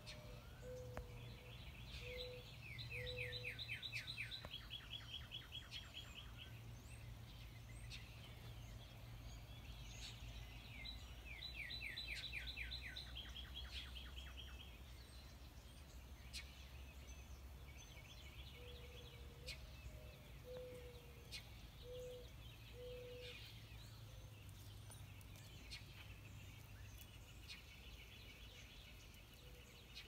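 Wild songbirds calling in a garden: a quick trilled song phrase of rapid falling notes comes twice, about a second in and again around eleven seconds, and a low hooting call of four or five notes sounds twice, near the start and around twenty seconds. The birdsong is faint, over a steady low hum.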